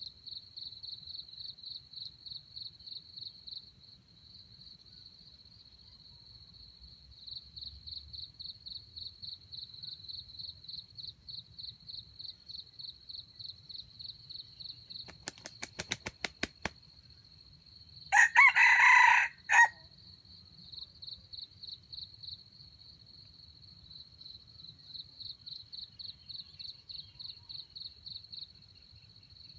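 A red junglefowl rooster crows once, a short crow of about two seconds past the middle, the loudest sound here. Under it an insect chirps in a steady, fast pulsing rhythm throughout, and a quick run of sharp clicks comes just before the crow.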